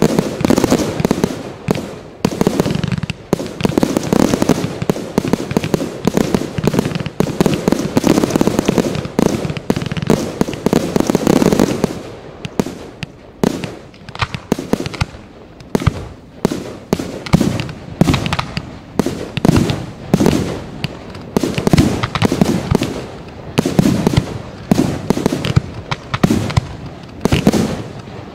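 Fireworks display: a dense barrage of bangs for about the first twelve seconds, then separate shots and bursts about one or two a second.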